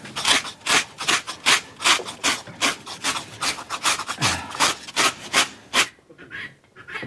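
Rhythmic back-and-forth scraping strokes by hand, about two and a half a second, stopping about six seconds in.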